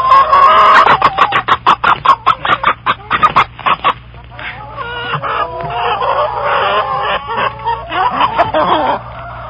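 Chickens clucking and squawking: a fast run of sharp clucks for the first four seconds, then longer, wavering squawks.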